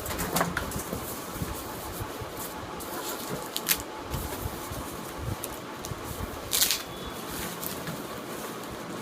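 A few short handling noises, clicks and rustles, over a steady background hiss.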